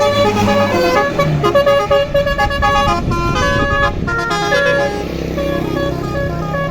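Bus 'basuri' telolet musical air horn playing a quick melody of short changing notes over the low drone of the bus engine.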